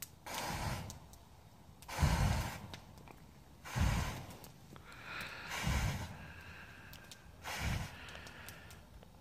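Fire breathing: five forceful breathy blasts, each a short whoosh of flame from fuel blown across a hand-held burning torch, repeating about every two seconds.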